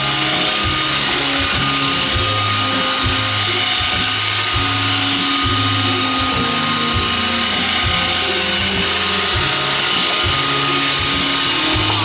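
iRobot Roomba 530 robot vacuum running across a hardwood floor, its motors giving a steady high whine, over background music with a steady beat.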